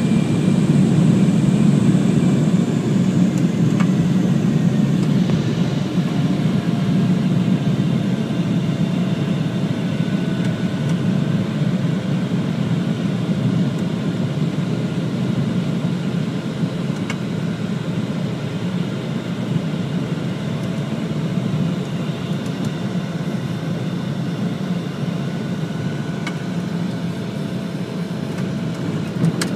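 Small high-wing plane's engine running steadily, heard from inside the cabin, a little louder for the first few seconds and then even.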